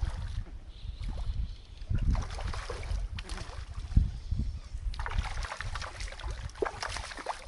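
Water splashing and sloshing as a foul-hooked largemouth bass thrashes at the surface during the fight, with the wading angler's legs stirring the shallow water. The splashing grows busier about five seconds in.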